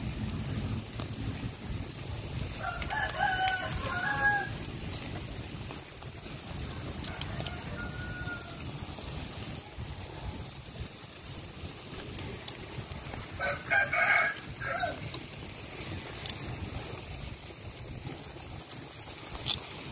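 A rooster crowing twice, about three seconds in and again midway, over a steady low background noise with occasional sharp clicks.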